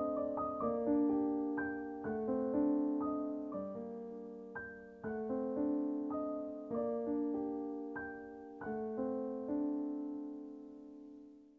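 Gentle, slow solo piano music, single notes and soft chords, fading out near the end.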